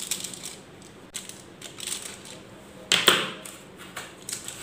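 Aluminium foil crinkling and tearing as a scissor point is pushed through it to make holes, in several short crackly bursts, the loudest about three seconds in.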